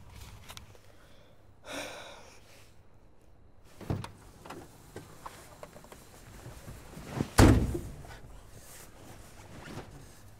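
Knocks and thuds inside a van: a short scraping slide about two seconds in, a knock near four seconds, and a heavy low thud, the loudest, about seven seconds in.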